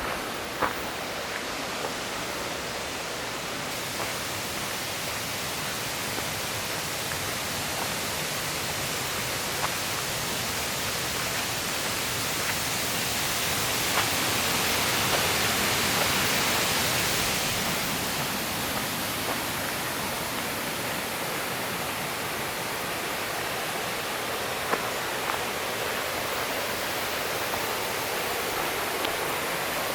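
Rushing water of a mountain stream and its cascades, a steady roar that swells about halfway through and then eases a little, with a few light clicks over it.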